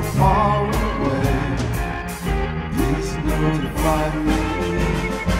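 A band playing an instrumental passage of a late-1960s-style pop song, pitched instruments over a steady beat.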